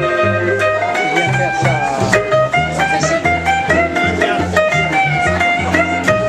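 Live blues band playing an instrumental passage, led by electric guitar over a repeating low bass line, with bent notes about two seconds in.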